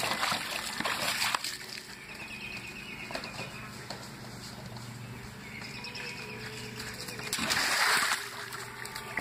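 A puppy splashing and pawing at the water in a plastic kiddie pool for the first second or so, then a quieter stretch, and another loud burst of splashing water near the end.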